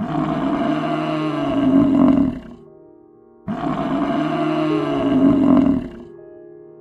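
A large animal's deep, low call, given twice, each lasting about two and a half seconds, with quiet steady music tones in the pause between.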